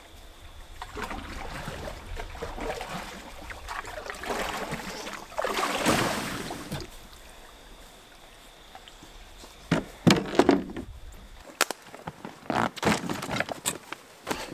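Canoe paddle strokes splashing and swirling in the water, loudest about six seconds in, followed by a few sharp knocks near the end.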